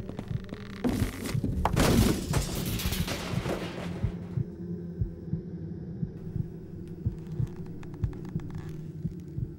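Suspense soundtrack: regular low heartbeat-like thumps over a steady drone, with a loud rushing swell from about one to four seconds in.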